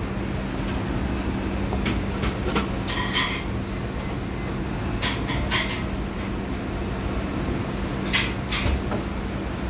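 Steady machine hum, like a kitchen ventilation or refrigeration unit, with scattered light knocks and clicks of a knife and hands working a fish on a plastic cutting board. Three short high beeps come close together about four seconds in.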